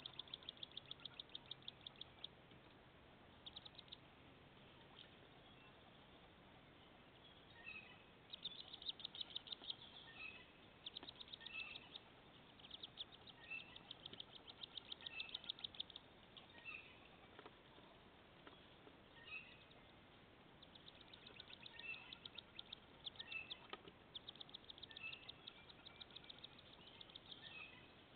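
Wood duck ducklings peeping, faint and high, in rapid runs of many peeps a second lasting one to three seconds, with single chirps scattered between the runs.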